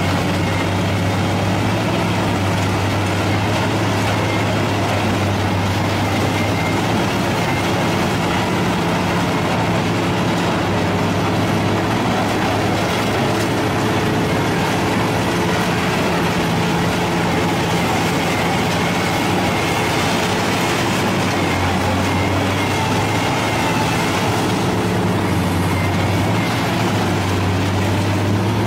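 Lindner Urraco 95 DK mobile shredder running under load, its diesel engine holding a steady low drone. Over the drone comes the continuous clatter and rattle of scrap metal being shredded and carried off on the discharge conveyor.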